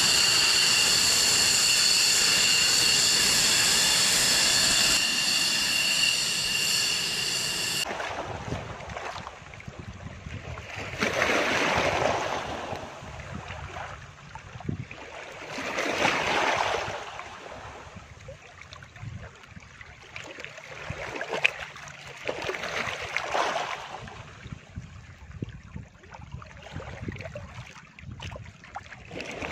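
A fighter jet's engine runs with a steady high whine over a rush of noise, then stops abruptly about 8 s in. After that come the rushing sea and bow wash of warships under way, swelling and fading every few seconds.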